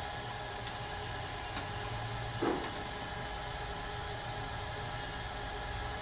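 A laptop motherboard being set into the metal board clamps of a BGA rework station: a sharp click about a second and a half in and a short knock about a second later, over a steady hum and hiss.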